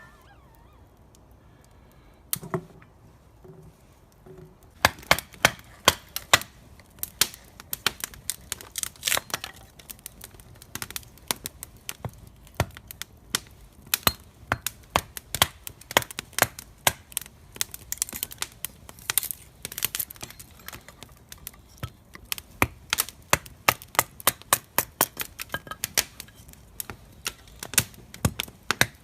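Wood fire crackling, with dense, irregular sharp pops and snaps starting about five seconds in, after a few scattered knocks.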